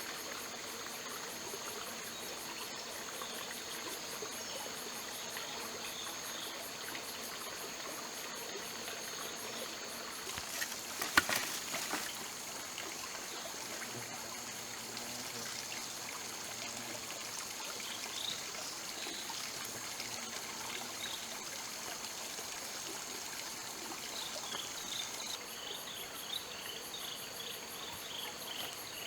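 Forest insects calling steadily, several high drawn-out tones with a fast pulsing trill above them. A short cluster of sharp knocks comes a little before the middle.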